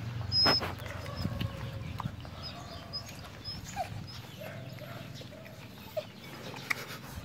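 A litter of puppies nursing from their mother dog: small suckling clicks and squeaks, with one short sharp sound about half a second in.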